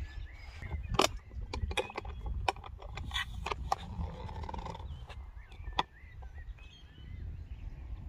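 Wind rumbling on a phone microphone, with a run of sharp clicks and knocks in the first six seconds from the phone being handled, and faint bird chirps in the background.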